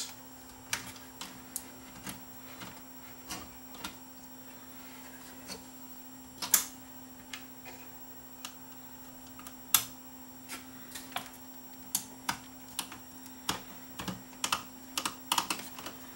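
Irregular light clicks and taps of small tools and plastic and metal parts being handled on a cassette deck's transport mechanism, with a few sharper knocks and a quick run of clicks near the end, over a faint steady hum.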